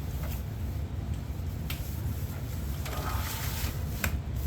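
Monitor packaging being handled during unboxing: a few light clicks and a brief rustle about three seconds in, over a steady low hum.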